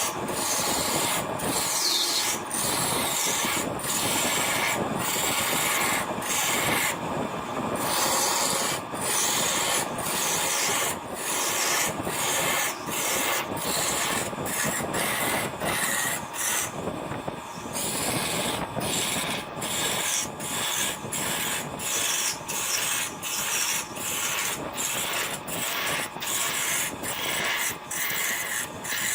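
Wood lathe running with the spinning workpiece being worked: a continuous rasping noise over faint steady motor tones, broken by short regular gaps about once a second.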